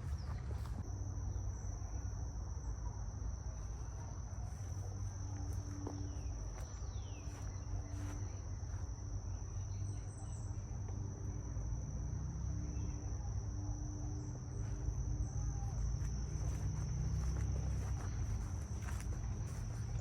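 Insects, crickets or similar, trilling in one steady high-pitched tone over a low rumble.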